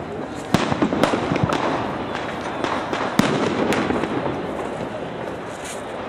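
Firecrackers going off around the city at night: a string of sharp bangs, several in the first two seconds and two more a little past three seconds, over a dense, steady din of more distant bangs.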